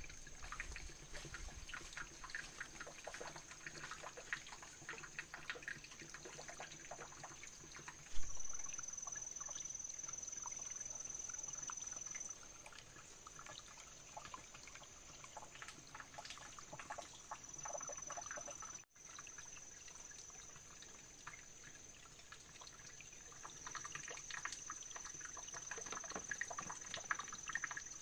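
Water splashing and trickling in small irregular bursts, with a thin steady high-pitched whine at times. The sound changes abruptly about eight and nineteen seconds in.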